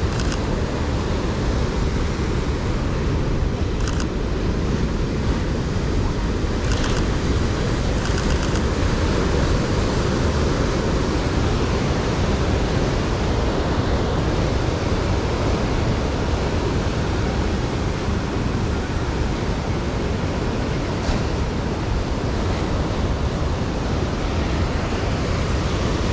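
Heavy surf from a large swell, breaking on rocks as a steady rushing noise, mixed with wind buffeting the microphone. A few faint clicks come in the first third.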